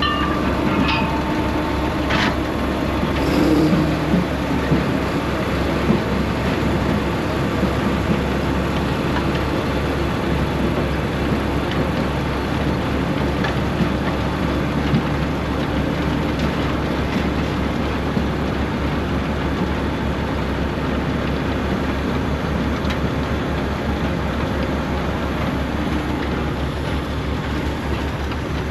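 Heavy diesel harvest machinery running steadily: a low engine drone with a dense mechanical rattle over it, and a few sharp clanks in the first few seconds.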